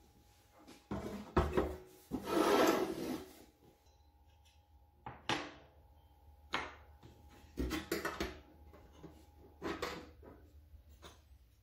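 Corrugated galvanized steel garden-bed panels being handled on a plywood workbench: a scraping slide about two seconds in, then scattered knocks and clinks of metal on wood as a corner tie is fitted.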